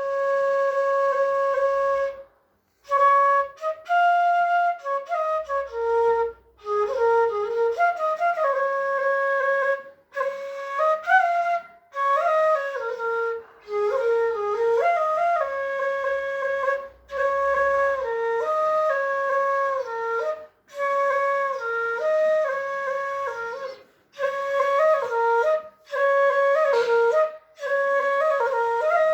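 Solo flute playing a slow melody in phrases broken by short pauses, often settling on one long held note.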